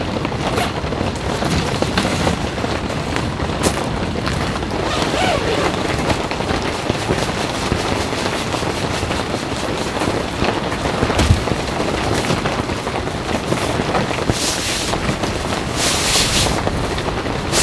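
Steady rain falling on a tent's nylon fly, many small drop impacts over a constant hiss. Nylon rustling comes in twice near the end as a sleeping bag and foam pad are handled inside the tent.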